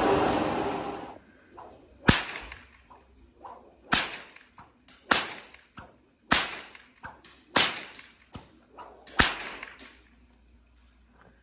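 A steady rushing blower noise, from the fan of an inflatable tube man, stops suddenly about a second in. After that, a whip is cracked about a dozen times over some eight seconds, each crack sharp and loud, some coming in quick pairs.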